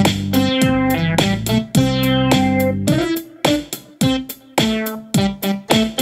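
Instrumental background music: a steady run of plucked and keyboard notes over a sustained bass, the bass dropping out for a second or so about halfway through.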